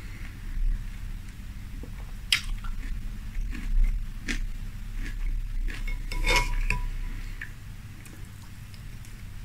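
Metal spoon clinking and scraping against a glass bowl as it stirs and scoops cereal flakes in milk. A few sharp clinks come through, the loudest about two thirds of the way in, ringing briefly.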